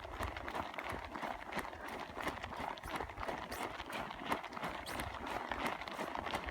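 Footsteps of a person walking briskly along an outdoor path, a steady run of short, even steps.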